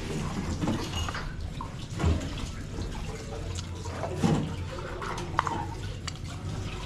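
Liquid sloshing and dripping in a cooking pot, with a few light clicks and knocks of pots and lids, over a steady low hum.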